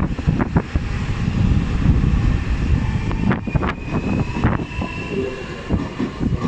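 Tobu 500 series Revaty electric limited express pulling out and gathering speed, with its motors and wheels running and rumbling steadily. A faint high whine rises slightly in pitch about halfway through.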